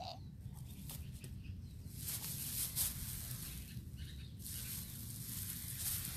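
Grass rustling with a breathy hiss from about two seconds in until about four and a half seconds, and briefly again near the end, over a low steady outdoor rumble.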